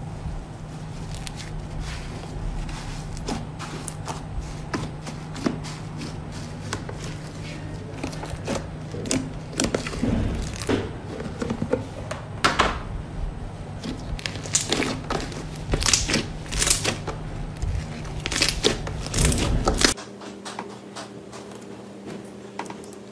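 Thick red fluffy slime being stretched and pressed, giving irregular sticky crackles and pops that grow louder and denser in the second half. They stop abruptly near the end, where a quieter steady hum takes over.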